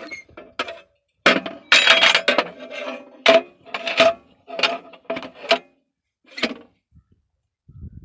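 Hammer striking a spanner on a nut on a steel implement frame: a string of sharp metal clanks at uneven intervals, each ringing briefly. The blows come thickest and loudest between about one and two and a half seconds in and stop a little past six seconds.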